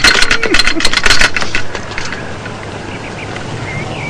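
Rapid clattering and clinking of cups, saucers, spoons and glass being handled in a hurry. It is dense for about the first second and then thins out to a few scattered clinks. Faint bird chirps come near the end.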